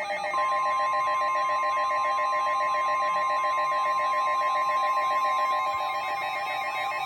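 Overlapping Emergency Alert System alert tones from several stations playing at once. A steady NOAA Weather Radio warning tone of about 1050 Hz comes in about half a second in, over other steady and warbling alert tones.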